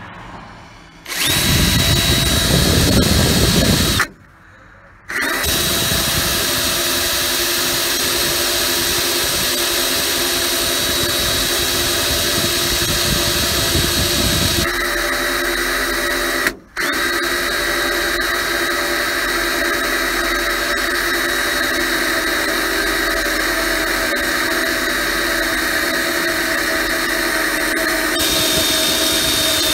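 Cordless drill running at length, boring through the thick steel of a truck's cab roof with a dull bit, so the hole goes slowly. The steady whine stops briefly twice, once about four seconds in and again a little past the middle.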